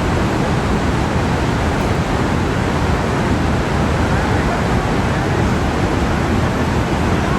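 Steady rushing of the Iguaçu Falls, a large volume of water pouring down in one even, unbroken wash of noise.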